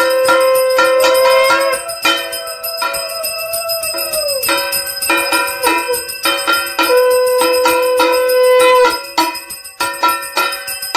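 Puja hand bell ringing rapidly and continuously during a Hindu aarti, while a conch shell is blown in long held notes. The first blast ends with a downward slide in pitch about four and a half seconds in, and a second blast comes a couple of seconds later.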